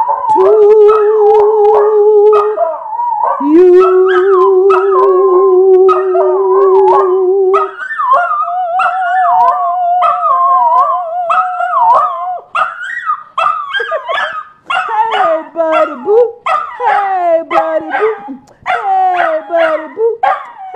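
A miniature schnauzer howling: long, steady held notes at first, then from about halfway on shorter, broken howls and yips that slide down in pitch.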